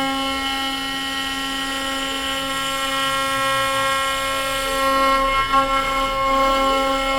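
CNC router spindle running at high speed while it cuts a pocket into eucalyptus wood. It gives a steady whine over a rougher cutting noise that swells and eases a little, with a brief louder patch about five and a half seconds in.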